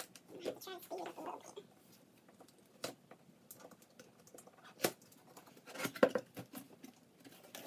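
Unboxing items being handled: scattered light clicks and knocks of packaging and plastic cutting mats, with a louder cluster of knocks about six seconds in.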